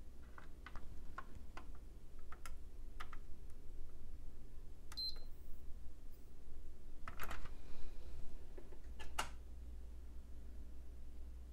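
Scattered light clicks and taps as a hand presses on a PS4 mainboard, with one short high beep about five seconds in as the board powers on, and two louder clicks later. A low hum runs underneath.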